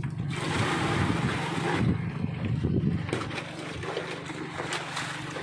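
Seawater poured from a bucket splashing into an insulated fish box for about the first three seconds, over the steady low hum of the boat's engine.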